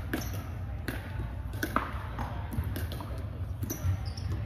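Irregular sharp pops of pickleball paddles hitting plastic balls and balls bouncing on a hardwood gym floor, echoing in a large hall over a low steady rumble; the loudest pop comes just under two seconds in.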